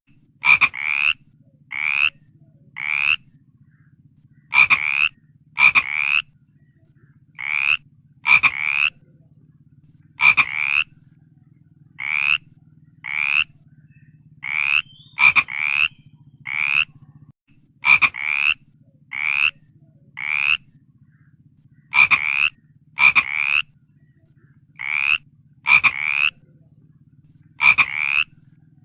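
Frogs croaking: short calls, each rising slightly in pitch, come about once a second at uneven spacing and often in pairs, some starting with a sharp click. A steady low hum runs underneath.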